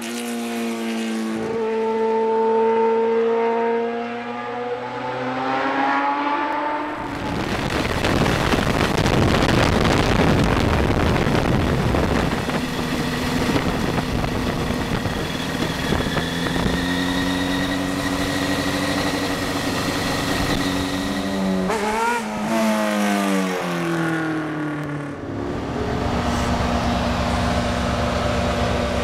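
A sport motorcycle's engine goes by under power, its pitch falling as it passes. Then comes a long stretch of wind rush over an onboard microphone while riding, with the engine note running under it and a quick run of gear changes, revs rising and dropping, about 22 seconds in. Near the end the engine sits at a steady, low, pulsing idle.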